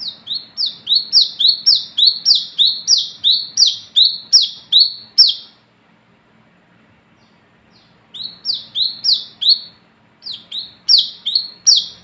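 Brown-throated sunbird calling: quick repeated sharp notes, each falling in pitch, about two or three a second. They come in three runs: a long run, a pause of about two seconds, then two shorter runs.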